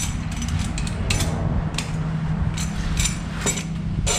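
Ratchet wrench clicking in short, irregular strokes as two nuts are tightened against each other on a threaded rod, locking them together. A steady low hum runs underneath.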